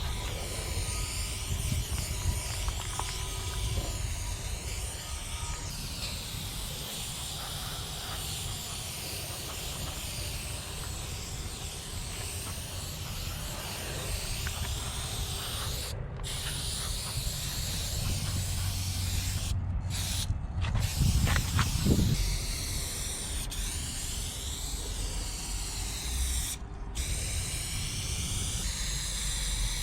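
Aerosol spray paint cans sprayed through wide Astro Fat Cap nozzles: long hissing sprays that cut off briefly four times in the second half as the nozzle is released. A low rumble runs underneath, swelling about two-thirds through.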